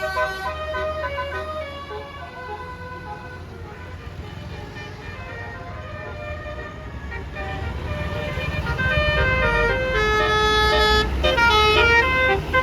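Tour bus basuri telolet air horn playing a melody of quick stepped notes, fainter at first and louder in the second half, over the low rumble of a bus engine that grows as the bus draws near.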